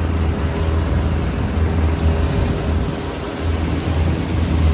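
Motorboat engine running steadily with a low drone.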